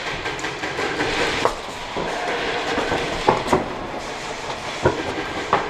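A steady rustle of movement broken by scattered sharp clacks and knocks: a few stand out about a second and a half in, a pair around the middle, and more near the end. It is the clatter of airsoft players moving with their gear.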